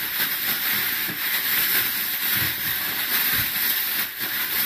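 Plastic bag rustling and crinkling as it is shaken hard with zucchini slices, flour and salt inside, a continuous rough rustle with a few dull soft knocks of the slices.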